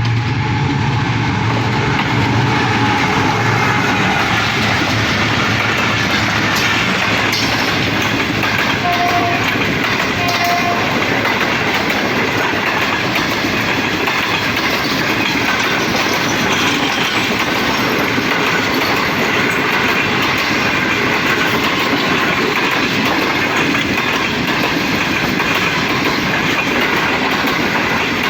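Express passenger train passing through a station at speed behind a GEU40 diesel-electric locomotive: the locomotive's low engine hum in the first seconds, then a long run of coaches rushing past with steady wheel clatter on the rails.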